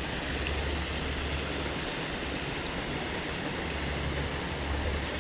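Steady rushing noise of flowing creek water, with a low rumble underneath.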